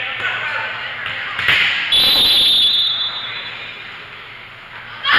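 Referee's whistle blown once, a shrill trill lasting about a second about two seconds in, over the murmur of spectators in a gym; in volleyball this whistle signals the server to serve.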